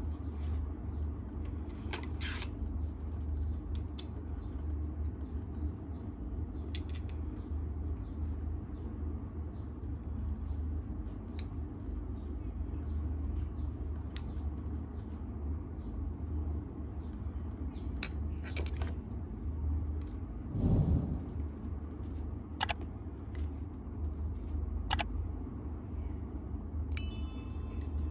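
Faint clicks and taps of two small brushless outrunner motors being turned over in the hands, over a steady low hum, with a dull thump about twenty-one seconds in.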